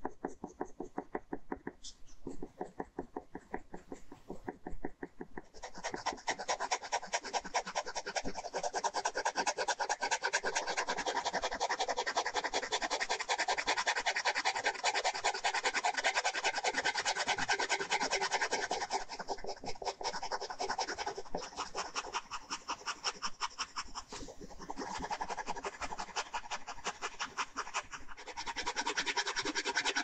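Ballpoint pen scratching across paper in rapid back-and-forth hatching strokes. Softer for the first few seconds, then louder, with a couple of brief pauses.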